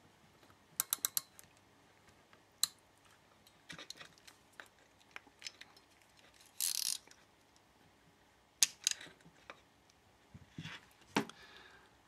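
Heavy-duty ratcheting crimper clicking in irregular short groups as its handles are squeezed, crimping a cable lug onto a stranded copper wire. A brief burst of rasping noise comes about seven seconds in.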